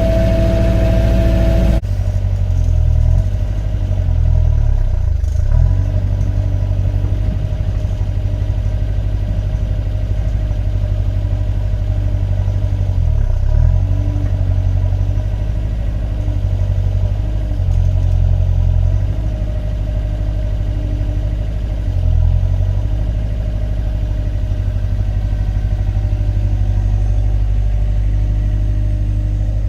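Diesel engine of small construction plant running steadily under working load, with its note swelling briefly several times as load comes on. The sound changes abruptly about two seconds in.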